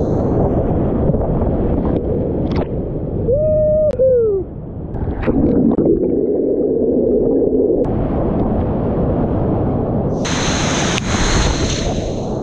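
Whitewater rapids rushing loudly over a kayaker's action-camera microphone. Partway through, the camera goes underwater: the rush turns muffled and gurgling, with a brief wavering tone that falls in pitch. Near the end it surfaces and the bright hiss of splashing spray returns.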